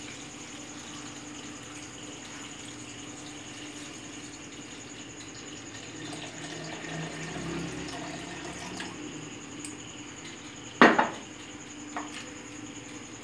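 Milk pouring in a steady stream from a bottle into a glass blender jar, filling it. A single sharp knock near the end.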